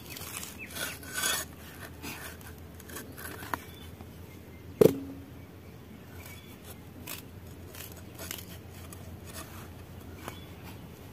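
Raw mango being sliced into strips on a blade: soft rasping cuts and scrapes, with a single ringing clink on a steel pot about five seconds in.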